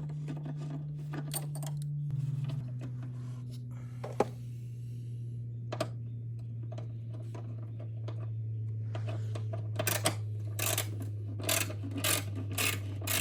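Metal tools clinking and rattling as they are handled, over a steady low hum. The clinks are scattered at first and turn into a quick busy run near the end.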